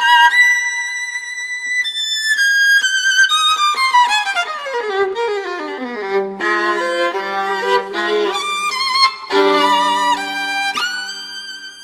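Solo violin playing a slow melody of long held notes with vibrato. It runs down the scale from high notes to low ones in the middle and climbs back up near the end.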